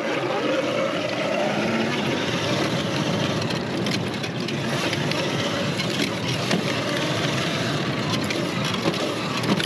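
79 Bike Falcon M electric dirt bike being ridden: a steady rush of drivetrain and riding noise with a faint electric-motor whine that rises a little in pitch in the first couple of seconds.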